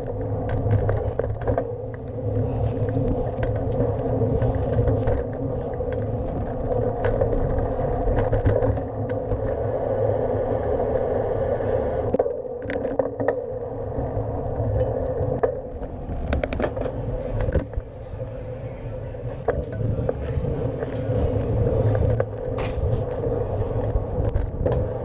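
Riding noise picked up by a camera mounted on a moving bicycle: a steady rumble of tyres on the road and vibration, with frequent small clicks and rattles from bumps.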